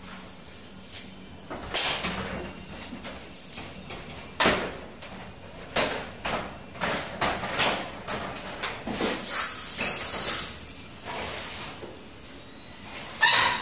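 Aluminium-framed glass sliding-door panels being handled and fitted into their frame: an irregular run of knocks, clatters and scrapes of metal frame against frame, with a louder ringing metallic knock near the end.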